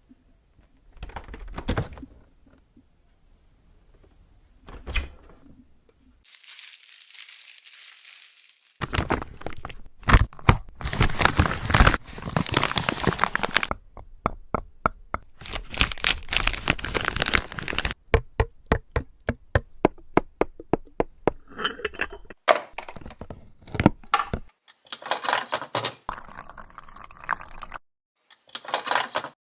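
A string of close-miked tapping and handling sounds at a refrigerator: clicks, knocks and clinks, a hissing pour-like stretch early on, and a quick run of evenly spaced clicks near the middle.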